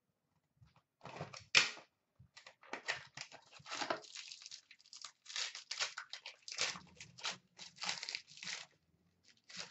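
Foil wrapper of a hockey card pack crinkling and tearing open, in quick irregular rips and rustles as the pack is handled, with one sharper rip about a second and a half in.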